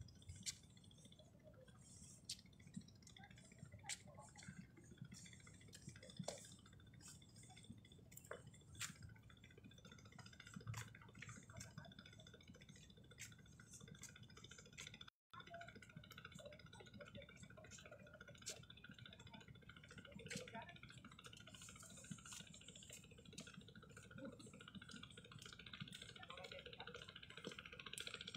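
Near silence: faint outdoor ambience with scattered faint clicks and a faint steady high tone, cutting out completely for a moment about halfway through.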